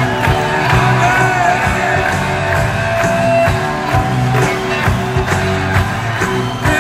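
Background rock music with drums.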